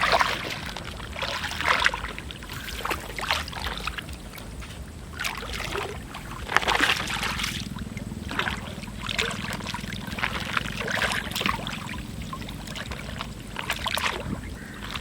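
Water splashing and pouring in a dozen or so irregular bursts as it is scooped up and tipped out by hand.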